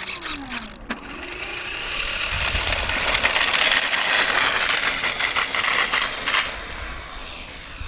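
Electric motor and propeller of a radio-controlled model P-51 Mustang whining as it is throttled. The pitch dips and then climbs in the first second or so, the whine builds to its loudest over the next few seconds, and it eases off near the end.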